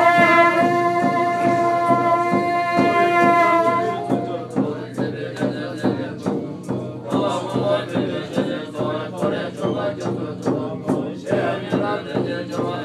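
Tibetan Buddhist monks' ritual music. A bright wind instrument holds one long tone for about the first four seconds, then chanting voices carry on over a steady beat of percussion strikes.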